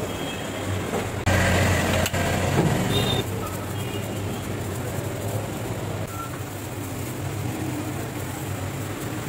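Steady low machine hum under a wash of background noise, swelling louder for about two seconds near the start, with a single sharp click in the middle of the swell.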